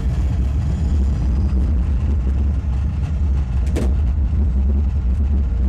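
Simulated rocket launch on the Mission: SPACE ride: a loud, steady, deep rumble of the rocket lifting off, played through the capsule's sound system.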